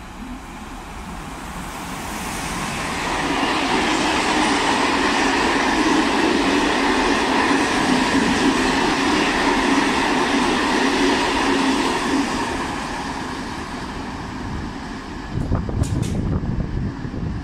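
Freight train passing through a station at speed: the noise of its wheels on the rails builds as it approaches, stays loud for about eight seconds while the wagons run by, then fades as the last of them pass. A low rumble and a couple of short knocks come near the end.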